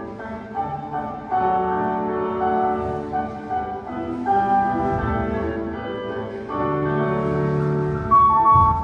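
Classical instrumental music playing: a slow melody of sustained notes over held lower notes, played back as accompaniment for classical dance exercises.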